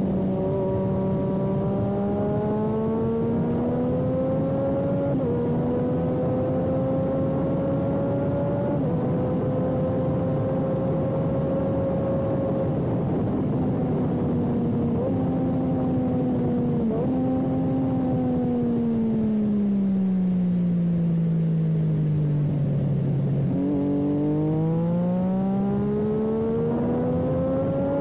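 Motorcycle engine at track speed with wind rush on an onboard camera: the revs climb and drop sharply at two upshifts about five and nine seconds in, hold, then fall away for several seconds as the rider slows, jump up at a downshift, and climb again near the end.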